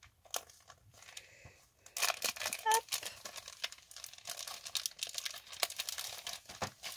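Clear plastic packaging of metal cutting dies crinkling and rustling as it is handled and opened. It starts about two seconds in and goes on in dense crackly bursts.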